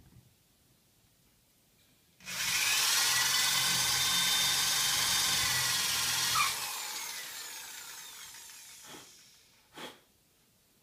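Corded electric drill with a concrete bit boring into a stuck cork in a wine bottle's neck. The motor starts about two seconds in, runs at full speed for about four seconds, then trails off over a couple of seconds. Two short knocks near the end.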